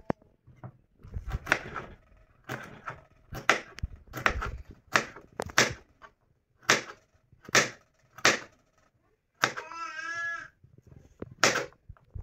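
Kitchen knife chopping a carrot on a plastic cutting board: sharp knocks of the blade through the carrot onto the board, one or two a second in uneven runs.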